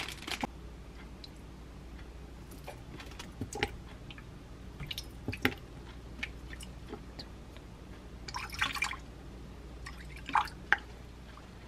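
Seasoning liquids, soy sauce among them, poured into a glass measuring cup on a kitchen scale: light drips and small splashes with scattered taps of glass and bottle, and a short pouring stream about 8 to 9 seconds in.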